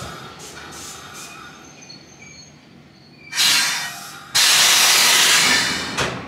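Former Hankyu 3100-series electric train standing just after stopping, its pneumatic system venting compressed air: a short hiss about three seconds in, then a loud, long hiss that fades near the end.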